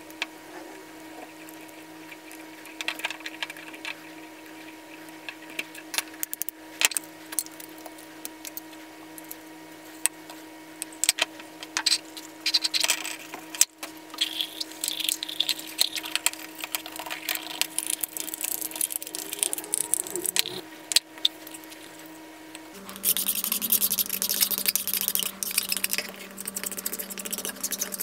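Hand-tool work on parts of an old bench grinder's electrical switch: scattered clicks and taps of a screwdriver and small metal parts on a wooden bench, a stretch of scrubbing noise midway, then a louder, dense scraping over the last five seconds.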